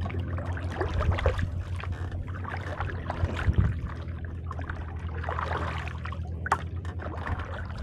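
Kayak paddle strokes splashing and dripping water, over a steady low rumble, with a few light knocks.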